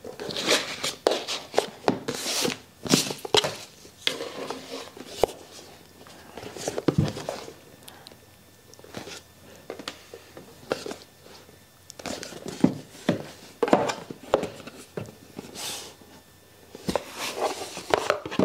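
Sunglasses packaging being handled: irregular taps, clicks and rustles of a black box and paper inserts in the hands, with a quieter stretch in the middle.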